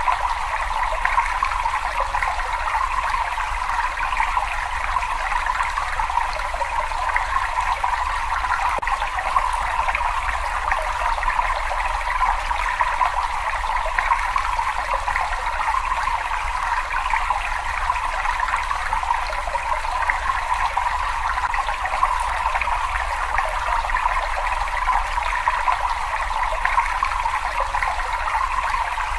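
Steady running water trickling and splashing in a cave, unchanging throughout, with a low steady rumble underneath.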